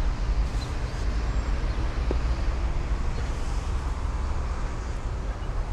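Steady rumble and hiss of city road traffic, with no single vehicle standing out.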